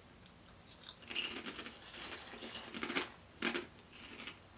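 Crisp crackling and crunching of puffed microwave pork rinds at close range, in a dense run from about a second in until about three and a half seconds, with a few sharper clicks.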